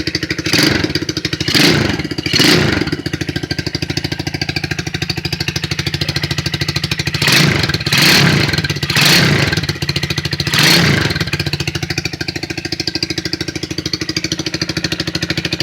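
200cc ATV engine idling steadily, just off the choke and barely warmed after a cold start, blipped up in short revs: three in quick succession near the start, then four more about halfway through, each dropping straight back to idle.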